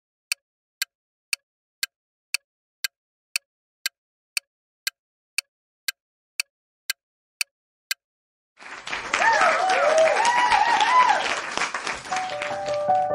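Countdown timer sound effect ticking about twice a second for some eight seconds, followed by a crowd applauding and cheering, a reward sound as the answer is revealed.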